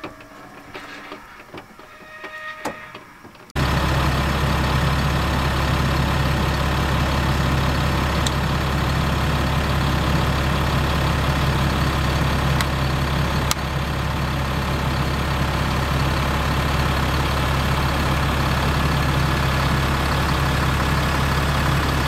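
A few faint clicks and knocks, then, about three and a half seconds in, the motorhome's engine idling starts abruptly and runs on as a steady, unbroken drone while the leveling jacks are set down on plastic leveling blocks.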